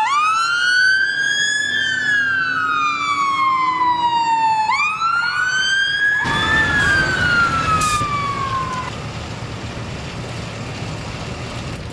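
Fire engine siren wailing, its pitch rising and falling slowly twice, then cutting off about nine seconds in. The vehicle's engine and road noise grow louder from about six seconds in and carry on after the siren stops.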